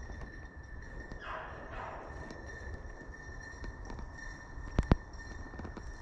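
A distant shotgun shot about five seconds in: a sharp double crack over faint steady background.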